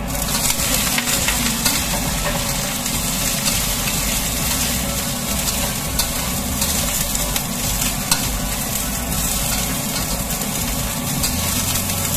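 Cauliflower florets dropped into hot oil and garlic in a wok, setting off a sizzle that starts suddenly and runs on steadily as they are stir-fried, with a metal spatula scraping and clicking against the wok a few times.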